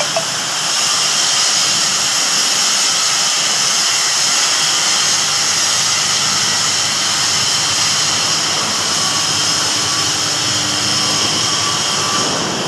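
Kaiyuan 1200 A submerged-arc welding machine running under power, a loud, steady whirring hiss with no breaks.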